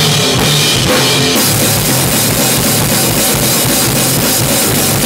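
A small rock band playing loudly: a drum kit with bass drum and snare driving a steady beat under guitars, the cymbals washing in continuously from about a second and a half in.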